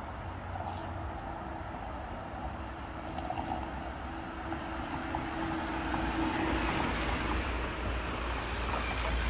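Road traffic noise: a car approaches along the road, its engine and tyre noise swelling through the second half, over a steady low rumble.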